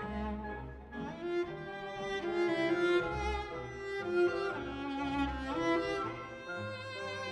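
Solo cello playing a melodic line of changing notes with a symphony orchestra, bowed strings prominent in the accompaniment.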